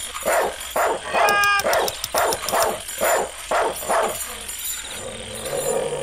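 A dog barking over and over, about two barks a second, with a short high whine about a second in; the barking stops about four seconds in.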